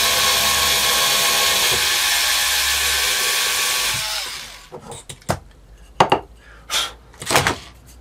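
Cordless drill driver with a chuck attachment boring a small hole in a scrap block of wood with a high-speed steel bit, running steadily and winding down about four seconds in. After it stops, a few sharp knocks and clicks as the wood block is handled.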